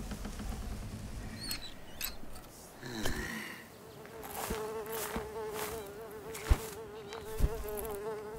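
An insect buzzing: a steady drone that wavers in pitch, starting about halfway through. A few sharp clicks cut through it, and two loud ones come near the end.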